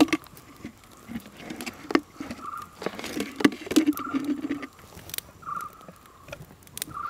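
Spoon scraping and clicking inside a plastic jar of coconut oil that has set solid like butter in the cold, in a series of short irregular strokes as it is dug out.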